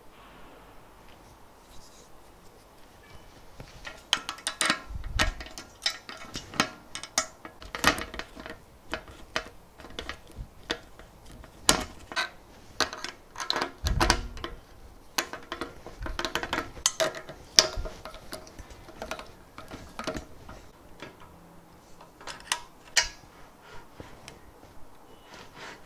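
Metal parts of a stepper-motor carriage clinking and knocking against an aluminium V-slot extrusion frame as the assembly is fitted and screwed on with a screwdriver. The clicks and taps are irregular, with two heavier knocks.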